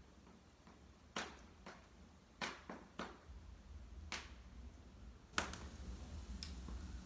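Wood fire crackling in a fireplace: about seven sharp pops over a low steady rumble, the loudest about five seconds in, followed by a hiss that stops just before the end.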